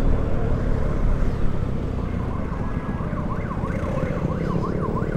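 Vespa scooter engine and road noise while riding. About three seconds in, an electronic siren joins in a fast up-and-down yelp, about three sweeps a second.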